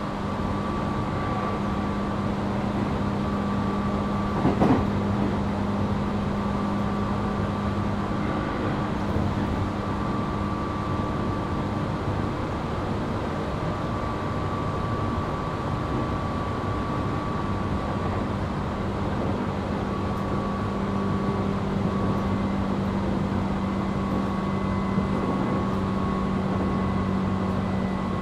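Tobu 8000 series electric train running at a steady speed, heard from inside motor car MoHa 8270: a steady rumble of wheels on rail with an even hum from the traction motors and gearing. A single knock sounds about four and a half seconds in.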